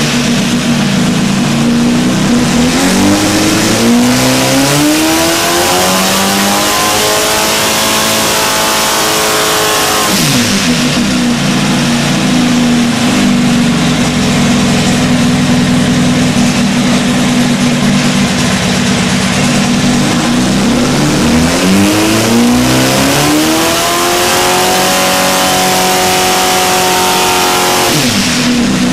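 Air-cooled VW Type 1 flat-four on an engine dyno, making two full-throttle pulls. Each time the revs climb steadily for about six seconds, hold briefly at the top, then drop sharply back to a steady lower speed. The first drop comes about ten seconds in, the second near the end. The engine is being run with its carburettor main jets raised from 175 to 190, a deliberately rich change to get a reading.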